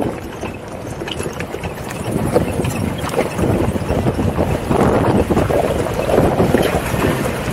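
Jeep driving over a rough off-road trail: engine and tyre noise with many small knocks and rattles, and wind buffeting the microphone. It grows louder about two seconds in.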